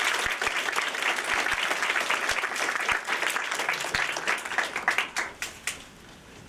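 Audience applauding: many hands clapping together, thinning out and stopping about five and a half seconds in.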